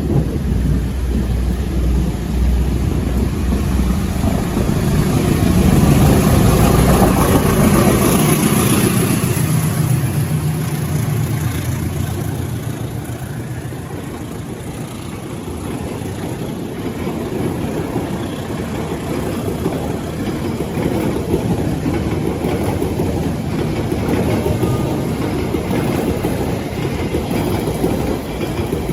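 Diesel locomotive engine running as a train passes in the rain. The sound is a loud, low rumble, loudest about six to eight seconds in, then easing to a steadier, quieter running sound.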